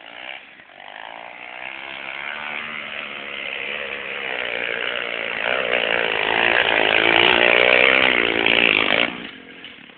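Pit bike engine revving hard under load on a steep dirt hill climb, its pitch wavering and growing louder as the bike comes closer. The engine sound stops abruptly about nine seconds in.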